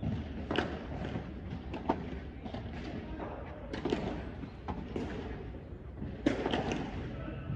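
Padel rally: sharp knocks of the rackets striking the ball and the ball bouncing, one every second or two, at an uneven pace.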